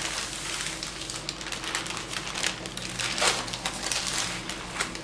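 Baking paper crinkling and rustling as hands press, smooth and shift it over a baked sponge cake, with a run of small crackles and a louder crackle about three seconds in.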